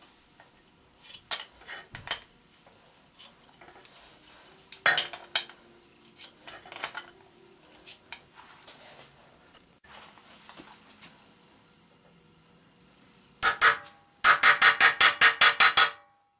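Scattered clicks and light knocks of a clear plastic centre-finding square handled against a square walnut blank. Near the end comes a short burst, then a fast, even run of about a dozen loud sharp taps, about seven a second, as the centre of the blank's end is marked.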